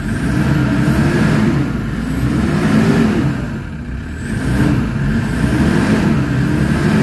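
Toyota Fortuner engine running and being revved, its pitch rising and falling about four times. It runs after a fuel-system repair with a little air still in the fuel system, which is expected to clear with running.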